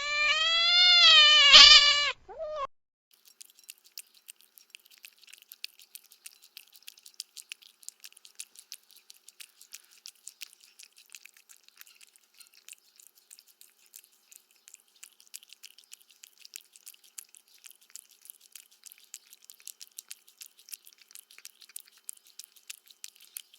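A domestic cat meows once, a long call that rises then falls. It is followed by about twenty seconds of faint, quick, irregular high clicks.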